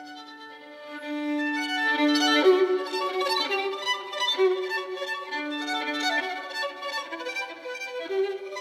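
Background music led by a violin playing long held notes. It starts soft and swells about two seconds in.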